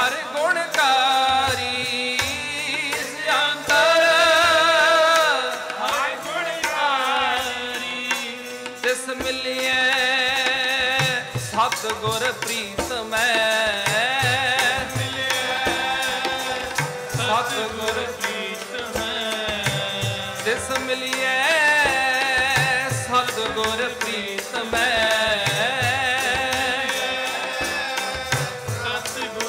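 Sikh keertan: a devotional melody sung and played with wavering, ornamented pitch over a steady tabla rhythm.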